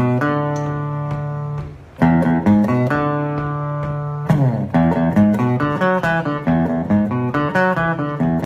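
Background music played on guitar: plucked notes and chords, with a short break about two seconds in and quicker picked notes from about four seconds in.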